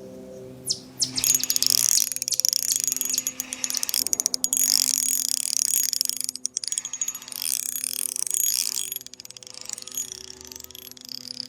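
Spinning reel's drag clicking rapidly in long runs, with short pauses, as line is pulled out: a fish is taking drag. The reel is a Shimano Soare XR fitted with a felt drag washer and grease.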